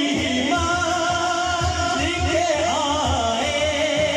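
A man singing a naat into a microphone over the hall's sound system, holding long notes that waver a little partway through, over a steady low beat.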